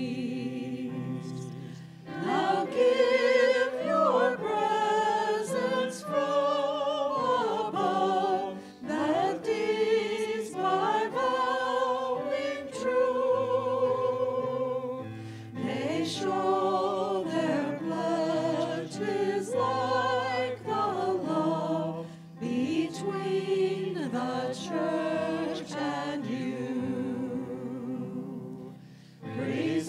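A voice singing a sacred song with clear vibrato, in phrases with short breaks between them, over sustained keyboard chords.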